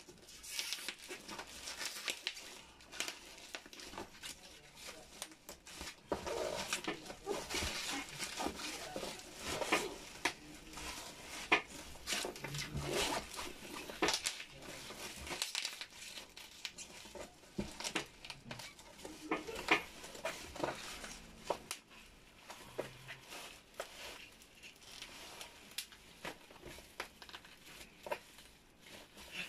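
Bubble wrap and plastic packing wrap crinkling and rustling as a taped cardboard parcel is handled and unwrapped by hand, with many irregular sharp crackles and some tearing.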